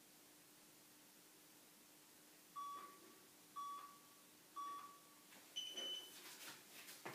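Workout interval timer beeping a countdown: three short beeps about a second apart, then one longer, higher-pitched beep marking the end of the timed plank hold. Soft rustling and knocks follow as the body comes down onto the mat.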